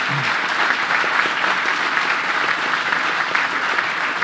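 Audience applauding: many hands clapping together in steady, dense applause.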